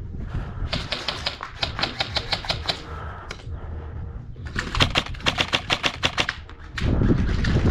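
Airsoft gun firing two strings of rapid, evenly spaced shots, about seven a second. A loud low rumble follows near the end.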